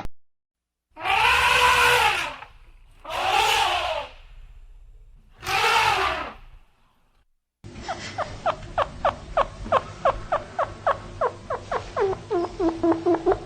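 Three drawn-out animal calls, each about a second long, rising then falling in pitch. After a cut comes a fast run of short squeaks, a few a second, quickening near the end.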